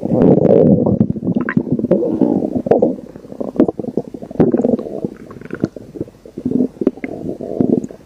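Stomach growling and gurgling: irregular low rumbles, strongest in the first three seconds and more broken after, dotted with many short sharp pops.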